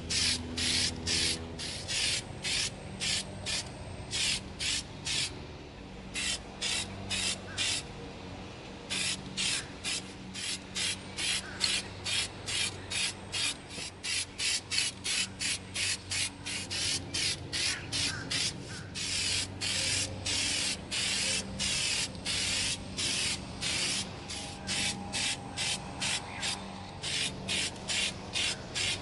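Aerosol can of Plasti Dip rubber coating spraying in quick short hissing bursts, about three a second, with a short lull a few seconds in.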